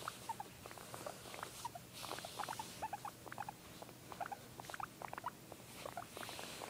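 Guinea pig making a string of short, soft squeaky chirps in quick, irregular succession, over soft rustling.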